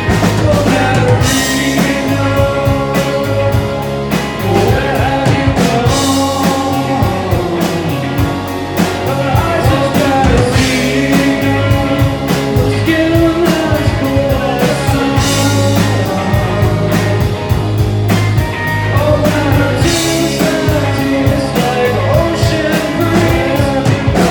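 Rock song played by a band: guitar, bass and drums with a steady beat and cymbal crashes about every four to five seconds.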